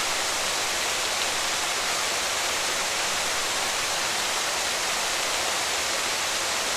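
Steady rush of water pouring down over an old mill dam and waterwheel.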